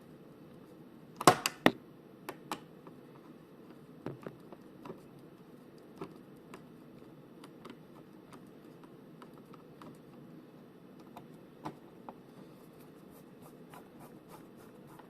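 Small screwdriver driving in the screw that holds down an M.2 drive's cover on a motherboard: scattered light clicks and scrapes of metal on metal, with a sharper pair of clicks about a second in and quicker ticking near the end, over a low steady hum.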